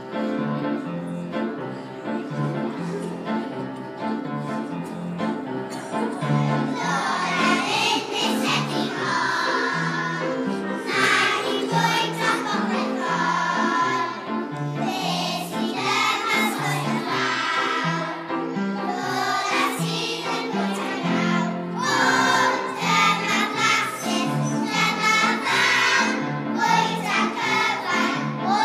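A group of young children singing together to an instrumental accompaniment. The accompaniment plays alone for about the first six seconds before the children's voices come in.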